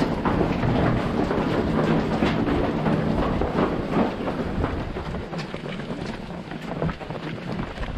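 Footsteps of a pack of runners jogging on a cobbled path, many quick steps overlapping, through a brick tunnel, with rumbling wind and rubbing noise on the camera's microphone. The sound grows quieter about halfway through as the runners leave the tunnel.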